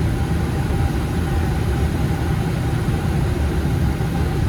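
Steady low rumble of airflow and engines heard inside a Boeing 737 MAX cockpit on final approach, with a faint steady hum above it.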